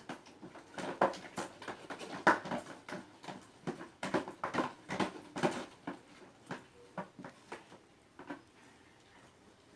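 Wet homemade slime of soap and paint being mixed, with irregular sticky squelches and clicks that thin out near the end.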